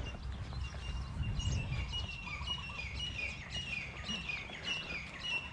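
Birds calling outdoors: a run of short, high chirps repeated several times a second, some sliding downward in pitch, over a low rumble.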